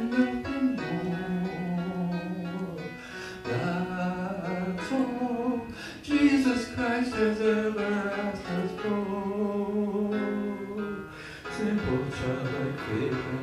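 Recorded piano accompaniment playing a slow instrumental passage between sung verses, with new chords struck every few seconds.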